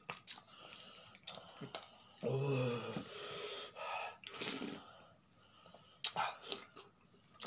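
A man gasping and hissing air through his mouth, with a short low groan about two seconds in, from the burn of eating raw green chillies. A sharp click sounds near the end.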